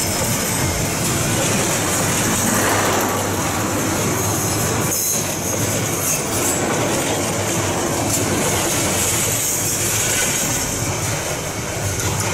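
Bangladesh Railway intercity passenger train passing close by at speed: a loud, steady noise of coaches' steel wheels running on the rails, with a steady high hiss over it.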